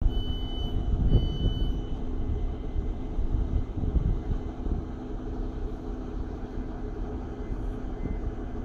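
British Rail Class 150 diesel multiple unit standing at a platform with its underfloor Cummins diesel engines running at idle, a steady low rumble with a held hum. Near the start, the door-closing warning sounds as two short high beeps as the doors shut before departure.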